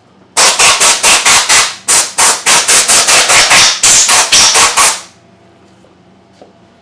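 Compressed-air blow gun fired in rapid short blasts at a chainsaw's engine to blow it clean, about four or five hissing bursts a second for some four and a half seconds.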